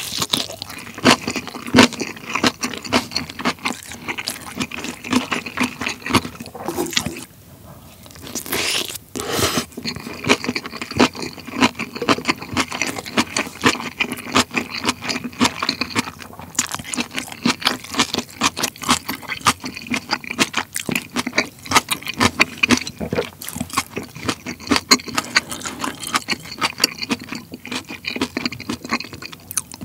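Close-miked wet chewing of a mouthful of rice topped with soy-sauce-marinated shrimp, giving a dense run of moist smacking clicks several times a second, with a short pause partway through.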